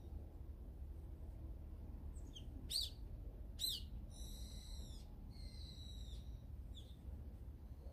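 A bird calling: a few soft chirps, then two loud sharp calls about a second apart, followed by two longer calls, each held for most of a second.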